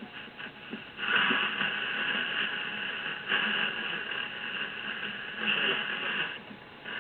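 Shortwave static and whistling squeal from a Zenith Y600 Trans-Oceanic tube radio's speaker as the dial is tuned across the 31-metre band. The noise swells about a second in and drops back near the end.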